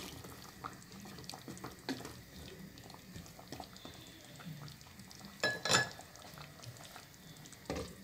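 Wooden spoon stirring chicken and carrot stew in a pot of broth, with liquid sloshing and small knocks of the spoon against the pot. A sharp knock about five and a half seconds in is the loudest sound, and a clatter near the end comes as the glass lid goes on the pot.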